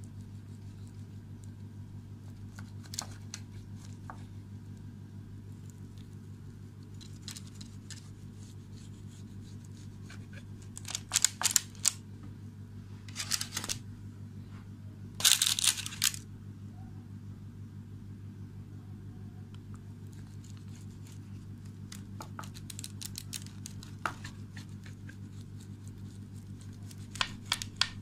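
Plastic pizza wheel cutter rolling through a baked pizza crust and scraping over the baking paper beneath it, in a few short crackling strokes about eleven, thirteen and fifteen seconds in, with lighter clicks between. A steady low hum underneath.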